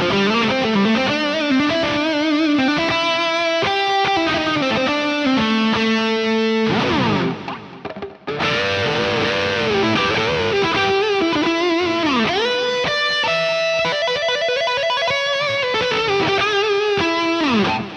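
Distorted electric guitar lead played through the Tonocracy amp-modeler plugin, running two amp models with reverb and ping-pong delay. It plays a single-note melody with bends and vibrato, pauses briefly about halfway, and slides down in pitch twice, once past the middle and once near the end.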